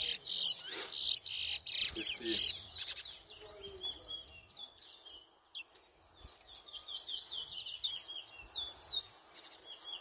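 Caged towa-towa seed finches singing in a song race: fast, high, chirping phrases that come densely for the first few seconds, then thin out to repeated phrases with short gaps between them.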